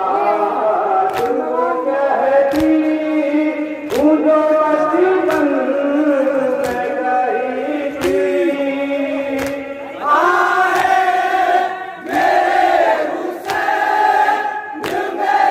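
A Shia noha (Urdu lament) chanted by a reciter and a group of male mourners, with the crowd's chest-beating (matam) landing together as sharp slaps roughly every second and a third. The chanting voices swell louder about ten seconds in.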